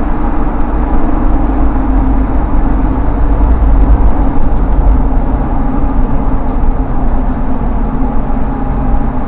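Toyota Land Cruiser Prado 150 driving under throttle, heard from inside the cabin: a steady low rumble of road and drivetrain noise, with a faint, very high-pitched hissing squeal that comes and goes a few times. This is the insect-like 'shaa-shaa, kii-kii' abnormal noise that occurs only on the accelerator, not when coasting, braking or revving in neutral; its cause has not been found and it persists after new brake pads.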